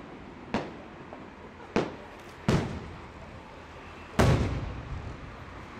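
Colored aerial firework shells bursting: four sharp bangs at uneven intervals. The loudest comes just past four seconds in and dies away in a long echo.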